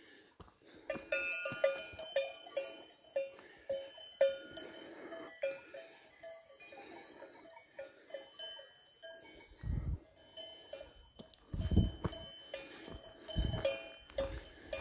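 Several cowbells on grazing cattle clanking irregularly, bells of different pitches ringing over one another. A few low thuds, about two seconds apart, come in the second half.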